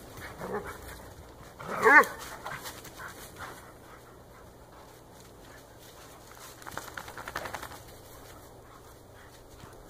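Two dogs playing rough in snow: one loud, short dog cry about two seconds in, with a smaller vocal sound just before it and panting and scuffling between.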